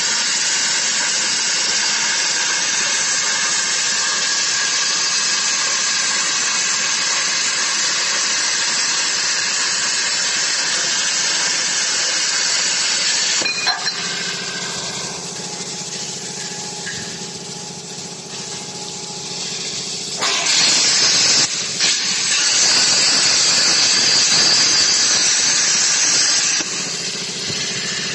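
CNC plasma cutting torch with its arc hissing loudly and steadily as it cuts channel steel, stopping abruptly about 13 seconds in to leave a quieter machine hum. About 20 seconds in a second loud hiss starts and runs for about six seconds before the hum returns.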